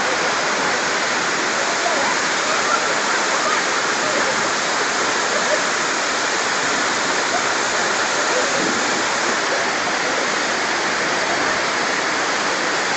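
Waterfall pouring into a rock pool: a steady rush of falling water that does not let up.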